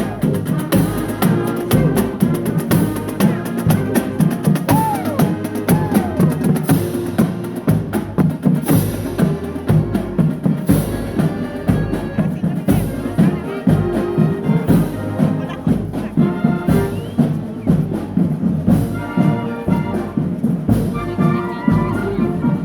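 A band playing an upbeat tune with trumpets and other brass over steady percussion.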